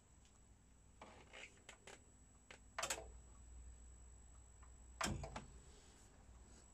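Front-panel push buttons of a Sony TA-AX285 integrated amplifier clicking as they are pressed. A few light clicks come about a second in, then two sharper clicks about two seconds apart, over a faint low hum.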